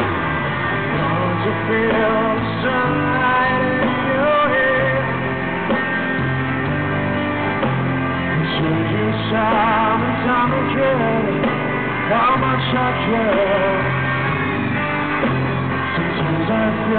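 Live rock band playing a slow rock ballad, with electric guitar over a steady bass line and sung notes at times, recorded from the audience with the top end cut off.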